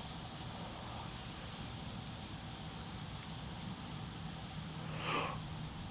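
A miniature donkey gives a single short, breathy snort about five seconds in. A steady high-pitched drone runs in the background.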